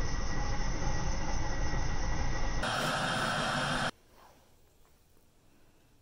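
Fire engine running at a night fire scene: a loud, steady noise with a deep rumble. About two and a half seconds in it switches to a brighter steady hiss, which cuts off abruptly about four seconds in, leaving only faint room tone.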